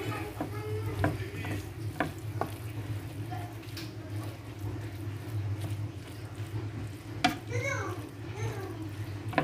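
Stirring and tossing a filling of minced kefta and rice vermicelli in a metal pan, with scattered sharp clicks of the utensil against the pan over a steady low hum.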